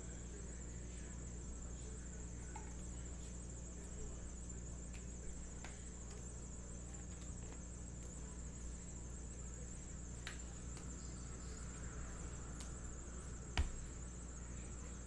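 Faint room tone: a steady high-pitched whine and a low hum, with a few light clicks and taps from trading cards and a plastic card holder being handled, the loudest a single knock near the end.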